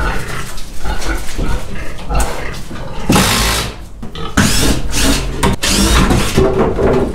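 Pigs grunting in a pen, with several rough scrapes of a shovel from about three seconds in.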